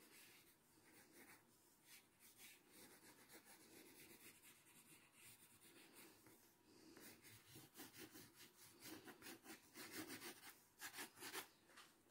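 Graphite pencil scratching on paper in quick, short, repeated shading strokes. The strokes come faster and louder from about seven seconds in.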